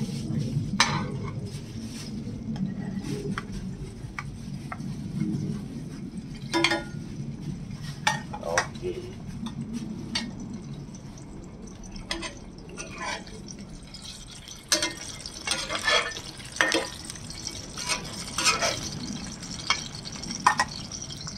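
Metal spoon and spatula clinking and scraping against a frying pan and a plate at irregular intervals, over pork patties frying in shallow oil.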